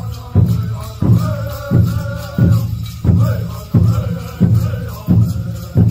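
Pueblo buffalo dance song: a men's chorus singing over a steady drum beat, about three beats every two seconds, with rattles shaking along.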